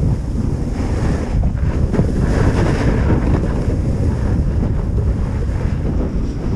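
Wind buffeting an action camera's microphone at speed down a groomed ski slope, a loud, rumbling rush, over the hiss of edges sliding and carving on packed snow.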